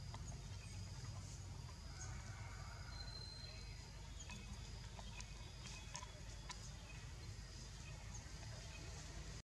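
Forest ambience: a steady low rumble with scattered faint clicks and short high chirps, and one thin, steady high note held for under a second about three seconds in.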